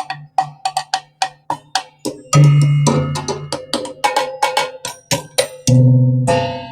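Percussion music: quick sharp wooden knocks, with sustained low notes coming in at intervals.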